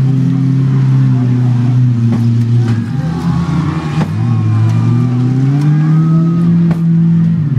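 Engines of front-wheel-drive demolition derby cars revving, the pitch rising and falling as they push in the mud, with a few sharp bangs of metal hitting metal.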